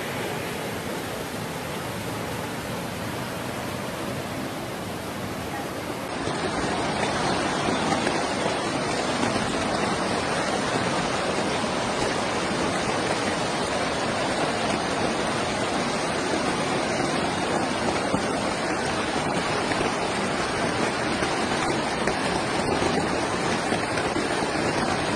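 Floodwater rushing by in a steady, unbroken noise, getting louder about six seconds in.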